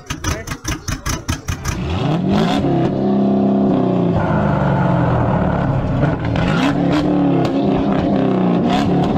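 A car engine being revved: a fast stuttering pulse for about the first two seconds, then several climbs and drops in pitch as the throttle is blipped.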